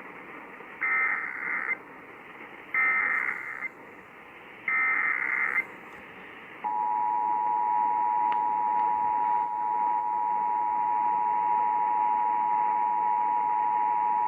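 Emergency Alert System test tones heard over radio: three short bursts of SAME header data, a buzzy digital screech about a second long each, about a second apart. About seven seconds in comes the steady two-tone EAS attention signal (853 and 960 Hz), with radio hiss underneath.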